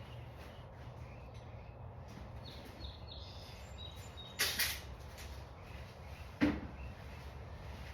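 Handling noises during mower work: a short scraping rustle about four and a half seconds in, then a single sharp knock about two seconds later, over a steady low hum. A few faint high chirps come before them.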